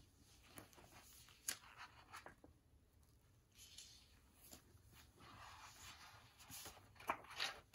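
Near silence with faint handling of a hardcover picture book: soft paper rustles and a few light taps, the loudest near the end as a page is turned.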